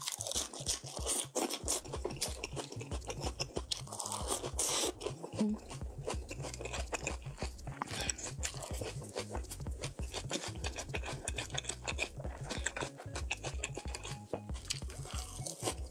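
Close-miked chewing and crunching of crisp lettuce wrapped around slices of raw salmon, a dense, irregular run of crunches and wet mouth clicks.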